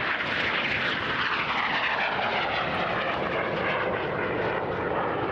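Aermacchi MB-339 jet trainer's turbojet engine during a low pass and pull-up into a steep climb, a steady loud jet noise whose pitch falls as the aircraft goes by.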